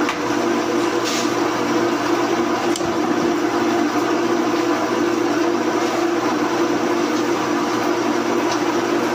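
Large pillar drill press running: a steady, loud machine hum with a few faint clicks.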